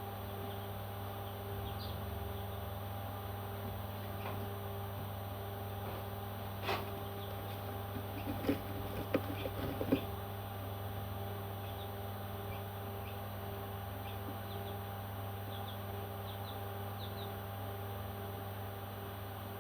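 Baby parrot chicks giving faint, short high peeps over a steady low hum. There is a sharp click about a third of the way in and a brief flurry of knocks and rustling just before the middle.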